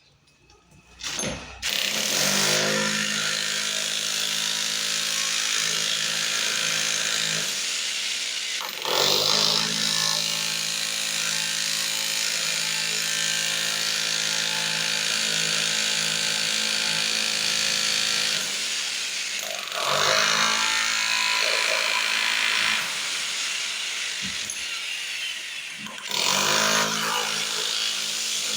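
Handheld electric power tool running under load as it cuts into the wall or floor to open it up, a steady motor hum with a broad hiss. It starts about a second and a half in and briefly eases off and surges again a few times.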